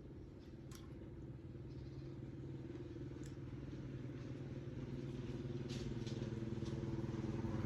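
A motor vehicle's engine running at a steady pitch, growing gradually louder as it approaches. A few faint clicks sound over it.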